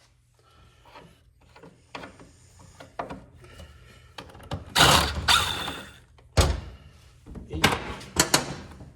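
Hand tools and metal mower parts being handled on a workbench: scattered light knocks, a rattling clatter about five seconds in, a sharp knock shortly after, and several more knocks near the end.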